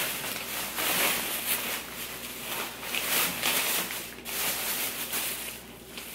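Thin plastic shopping bag rustling and crinkling as hands rummage through it and pull out packets of soft-plastic fishing baits, in irregular bursts that quieten near the end.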